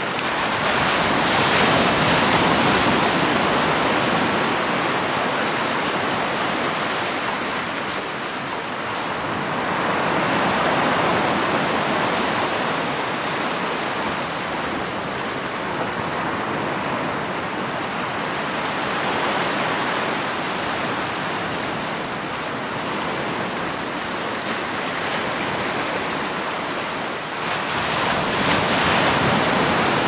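Sea waves: a continuous rush of surf that swells and eases about every nine seconds as waves break and wash in.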